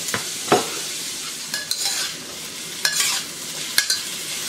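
Chicken and vegetables sizzling in oil in a hot wok, with a metal wok spatula scraping and clinking against the wok several times as the food is stirred.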